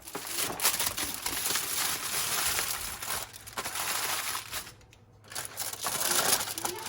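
Aluminium foil crinkling and crumpling as it is handled and pulled open around a rack of baked pork ribs, in two spells with a brief pause about five seconds in.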